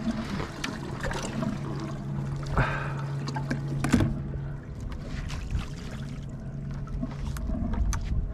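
A steady low motor hum on a boat that cuts out about halfway through, over water trickling and sloshing, with scattered knocks and clicks of gear being handled, two of them louder.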